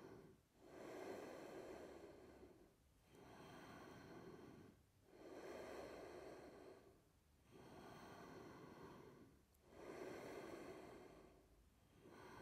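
Slow, steady, audible breathing, each inhale and exhale lasting about two seconds, roughly three full breaths, from a person holding an inverted yoga arm-balance pose.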